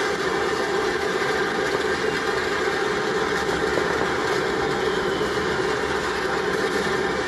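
Steady roar of massed ground rockets (coets) fizzing at the Corda de Paterna, heard through a television speaker.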